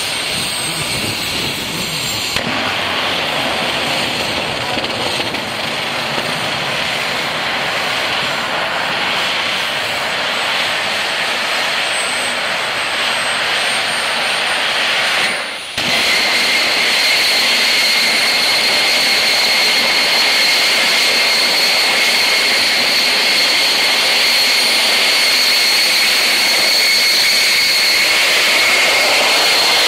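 Homemade turbojet engine on a jet-powered go-kart running loud and steady, a high whine over the roar dipping and then climbing in pitch. About halfway it breaks off for a moment and comes back a little louder, with a steady high whine.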